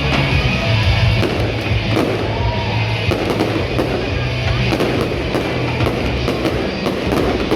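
Music playing with fireworks crackling and popping over it, many short sharp cracks throughout.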